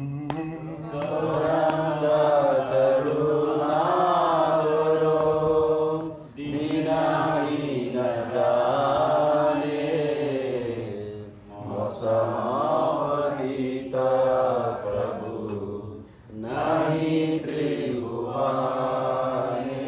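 Voices singing a Bengali devotional bhajan in slow, drawn-out phrases of about five seconds each, with short breaks between lines, over a steady low drone.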